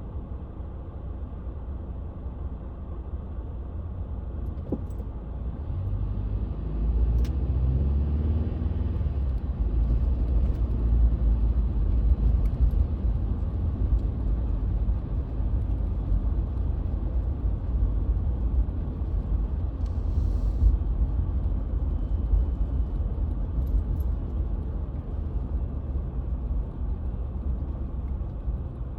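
Car driving, heard from inside the cabin: a steady low road and engine rumble. About six seconds in it grows louder, with the engine note rising as the car speeds up.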